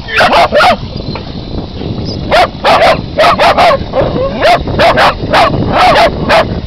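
Terriers barking excitedly at jets of water from an irrigator, in quick runs of short, sharp yaps, with a few near the start and longer runs from a couple of seconds in. Underneath is a steady hiss of spraying water.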